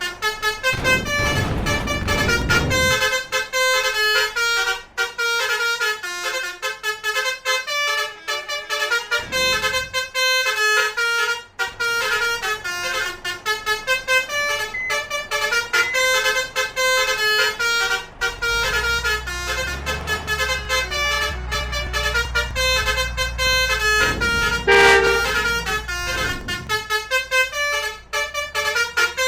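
Basuri multi-tone bus horns playing rapid 'telolet' melodies, short notes changing several times a second without a break. Bus engines rumble under the horns about a second in, briefly around ten seconds, and again from about eighteen to twenty-seven seconds.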